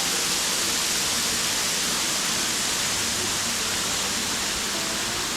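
Water spilling over Birchville Dam like a waterfall: a steady, even rush of falling water.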